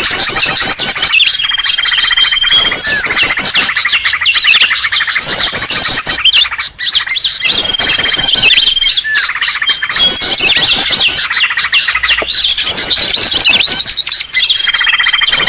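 Green leafbirds (cucak ijo) calling agitatedly, a loud, dense chatter of rapid chirps, trills and sweeping whistles. A held whistle and the phrases around it repeat about every six seconds, as in a looped bird-lure recording.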